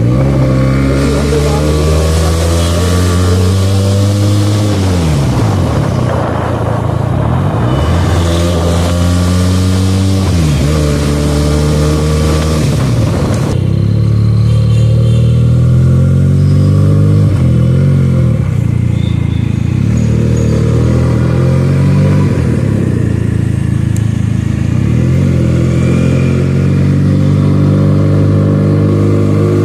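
Benelli 300's parallel-twin engine pulling through the gears: its pitch climbs and then drops away three times in the first half, with wind rushing over the microphone. After about halfway the wind eases and the engine runs at lower, steadier revs.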